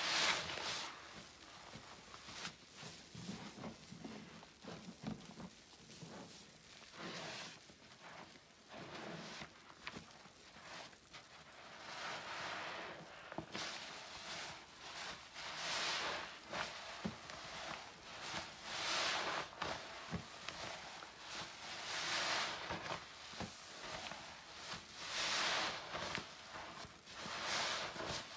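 A sponge soaked in floor-cleaner solution being squeezed and released by hand, giving wet, crackling squishes of suds. The squeezes are soft and scattered at first, then come as stronger, regular squeezes about every three seconds.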